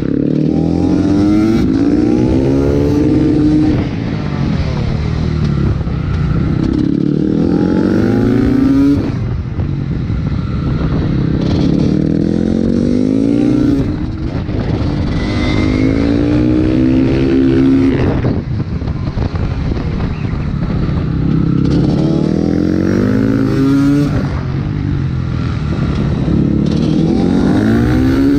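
TM Racing 300 cc two-stroke engine of a Honda CRF supermoto revving hard on a track: its pitch climbs under throttle and drops sharply as the rider shuts off for a corner, repeating roughly every five seconds.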